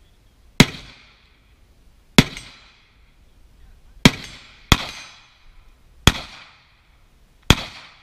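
Six carbine shots fired one at a time at an uneven, deliberate pace, each a sharp crack followed by a short echo that dies away.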